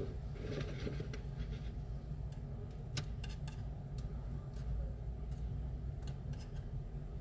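Small repair tools scraping and clicking against a phone's parts: a scratchy scrape in the first second, then a few sharp separate clicks, over a steady low hum.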